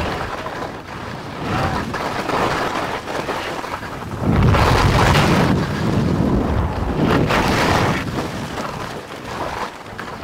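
Rushing wind buffeting the microphone of a skier's body-worn camera during a fast descent, with skis scraping and hissing over the snow. The noise comes in surges, loudest from about four seconds in and again around seven seconds.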